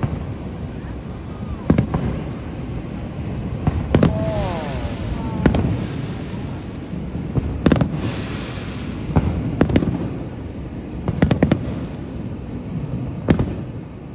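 Fireworks bursting overhead: sharp booms every second or two, irregularly spaced, some shells followed by a spreading crackle, over a steady low rumble.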